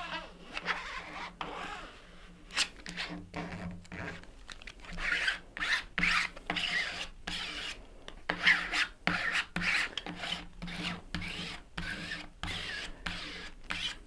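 Plastic credit card scraping over a vinyl decal's backing, pressing the decal down in many short, uneven rubbing strokes with occasional clicks.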